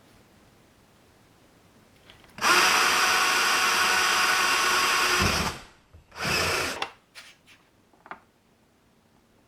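Power drill running, drilling a hole in the kayak for mounting a switch: one steady run of about three seconds, a brief stop, then a short second burst, followed by a few light clicks.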